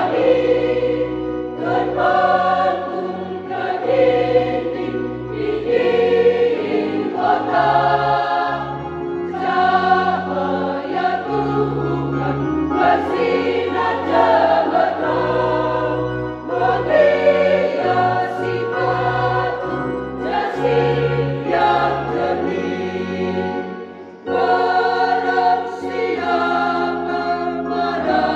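Church choir singing an Indonesian hymn over organ accompaniment, the organ's held bass notes changing every second or two. The singing drops off briefly near the end before the choir comes back in.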